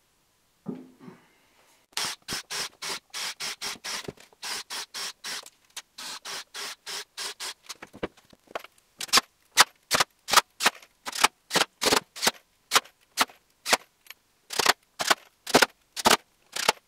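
Cordless driver running in short, sharp bursts, about two to three a second, as it drives fasteners; the bursts grow louder and less even about nine seconds in.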